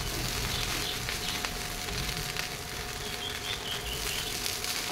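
Rice frying in ghee and butter in a kadhai, with a steady soft sizzle and the light scrape and clatter of a wooden spatula stirring it. A faint steady tone runs beneath.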